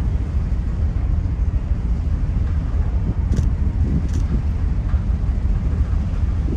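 Steady low rumble of a car ferry's engines under way, with wind buffeting the microphone. Two short high chirps come about three and four seconds in.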